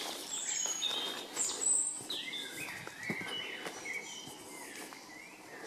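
Songbirds chirping and singing in woodland: a string of short whistled notes and quick pitch glides, with a few soft footsteps on the dirt path.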